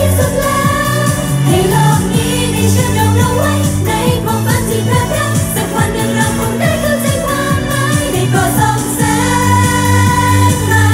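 Live idol-pop performance over a stage sound system: an upbeat pop backing track with a steady beat, and a girl group singing.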